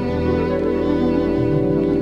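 Background music with sustained notes, the low notes changing about one and a half seconds in.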